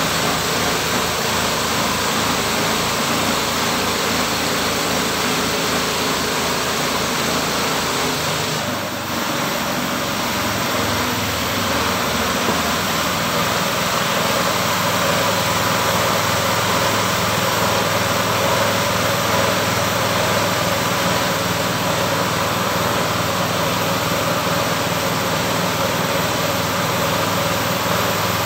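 Engine of a homemade sawmill running steadily under a dense mechanical noise, with a brief dip and a change in its low pulsing about nine seconds in.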